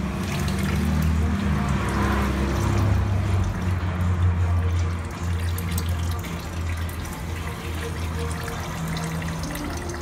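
Engine oil trickling and dribbling out of a 2013 Toyota Prius's engine as it drains during an oil and filter change, with music playing.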